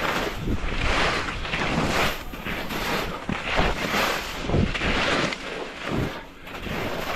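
Skis scraping and carving on firm, wind-packed snow through mogul turns, the hiss swelling with each turn about once a second, over wind rumbling on the camera microphone.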